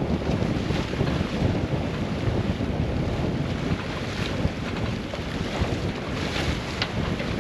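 Strong wind buffeting the microphone aboard a sailing yacht in rough, rolling sea, over the rush of waves. The noise comes in uneven gusts and never drops away.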